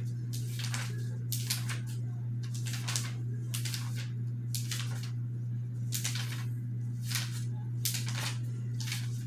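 Irregular short scratching or rubbing strokes, roughly one or two a second, over a steady low electrical hum.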